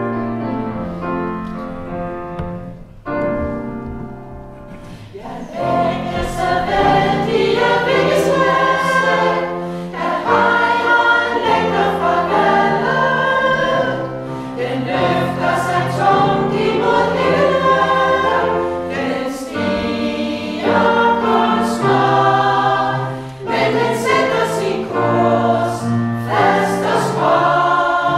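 Women's choir singing a Danish choral song with piano accompaniment. The singing is softer at first and grows fuller and louder from about five seconds in.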